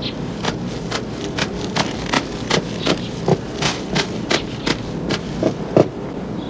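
A steady run of sharp clicks, about three a second, over a constant background hiss; the clicks stop about six seconds in, the last one the loudest.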